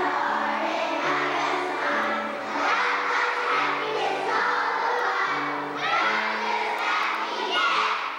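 Children's choir singing together over a steady instrumental accompaniment, its low notes changing about twice a second.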